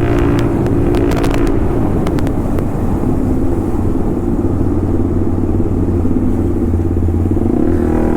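Hero Xtreme 250R's single-cylinder engine running through an aftermarket exhaust, with crackles and pops over the first couple of seconds. The note then settles to a steady drone and rises again near the end.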